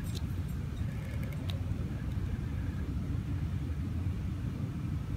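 Steady low rumble of outdoor background noise, with a few faint small clicks in the first second and a half.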